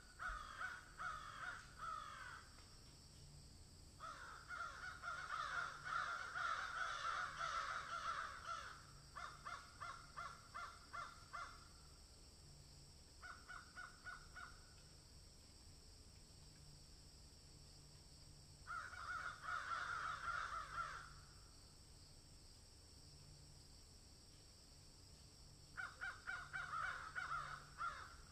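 Harsh animal calls repeated rapidly in six bouts of one to five seconds each, with quiet gaps between them.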